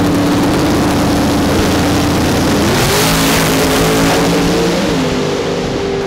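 Two drag-race cars launching side by side at full throttle: a Hemi-powered car and a nitrous big-block Firebird, both very loud. The engine note climbs and changes pitch about three seconds in, and again about five seconds in.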